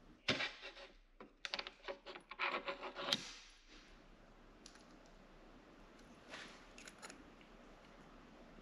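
Small metallic clicks and scrapes as a spark plug is cinched down in a gapping tool and worked to close its electrode gap toward 0.022 in, most of them in the first three seconds. After that only a few faint ticks are heard while the gap is checked with a wire gauge.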